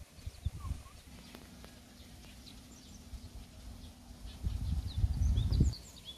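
Small birds chirping in short, high calls, with two bursts of low rumbling on the microphone, the longer and louder one about four and a half seconds in. A low steady hum runs between them.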